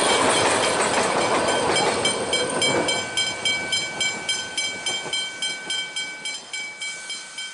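Puffing Billy narrow-gauge steam train running past, loud at first, then its regular exhaust beats, about four a second, fading as it pulls away.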